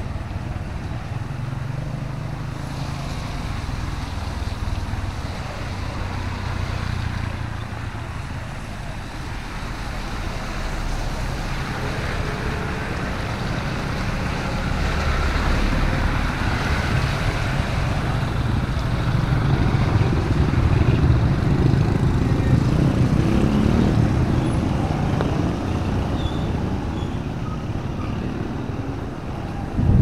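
Road traffic on a wet street: motorbikes and a truck running past, growing louder about halfway through and easing off near the end.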